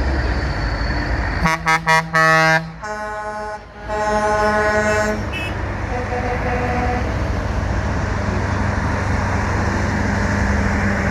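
Truck air horns sounding: three quick toots and a longer blast a second and a half in, then more horn blasts over the next few seconds, over the steady rumble of passing traffic.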